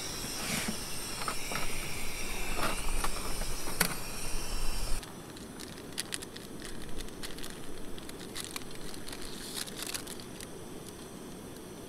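Camp stove hissing under water being heated for coffee, with faint whining tones. It cuts off abruptly about five seconds in, and scattered light clicks and crackles follow.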